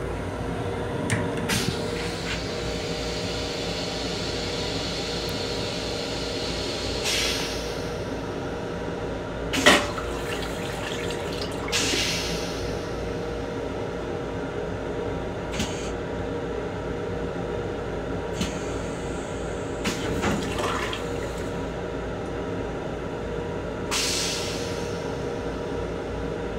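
Toilet on a Long Island Rail Road M7 railcar flushing, with several short hissing spurts of water into the stainless-steel bowl and a sharp thump about ten seconds in. Under it runs the steady hum of the train.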